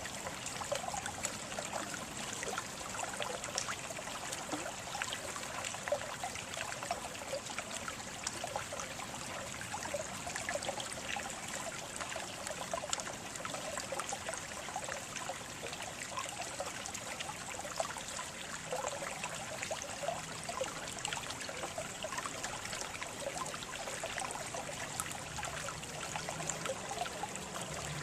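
Water trickling and splashing steadily in a small stream, a continuous babble of many small droplets.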